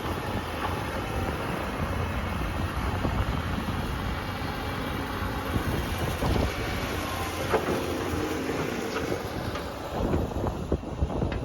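Heavy machinery engine running steadily, with wind noise on the microphone.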